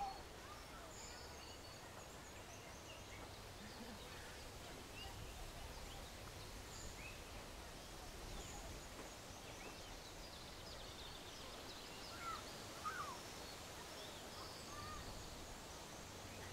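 Outdoor nature ambience: scattered bird chirps and short calls over a soft, steady background, with a couple of louder calls about three-quarters of the way through.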